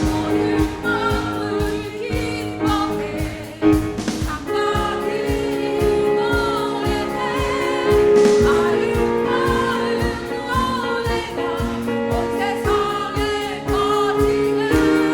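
A small church vocal ensemble singing a Christmas carol in harmony, with vibrato on the held notes, over an accompaniment with a steady low beat.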